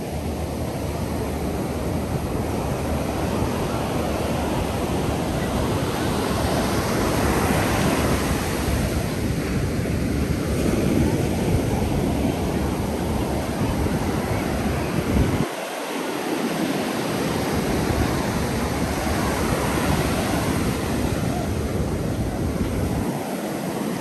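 Ocean surf breaking and washing up a sandy beach, a steady wash of noise that swells and eases. Wind rumbles on the microphone and drops away briefly about two-thirds of the way through.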